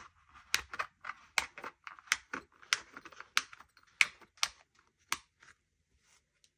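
Sharp plastic clicks and snaps from punched planner pages and a frosted plastic divider being pressed onto the discs of a disc-bound planner, about a dozen clicks in the first five seconds, two or three a second, then stopping near the end.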